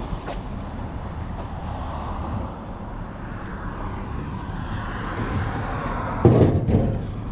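Steady vehicle running noise that swells in the second half, then a loud clunk about six seconds in, followed by a couple of smaller knocks.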